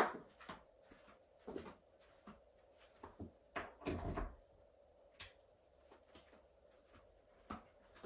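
Scattered plastic clicks and knocks as a Shark NZ850UKT upright vacuum cleaner is handled, with a sharp knock at the start and a cluster about three and a half to four seconds in.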